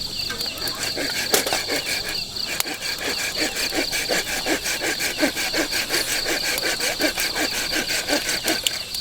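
Night insect chorus: a steady high trill with a rhythmic pulsing call, a few pulses a second, that sets in suddenly.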